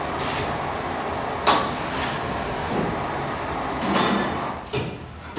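Restaurant kitchen prep: a steady background of running fans and kitchen noise, broken by a few sharp knocks and clatters of containers and utensils. The loudest knock comes about a second and a half in, with a longer clatter around four seconds.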